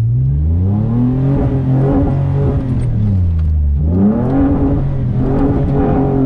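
Pre-runner truck engine revving under acceleration across sand: the pitch climbs over the first second or so, sags back down, then surges again about four seconds in and holds high.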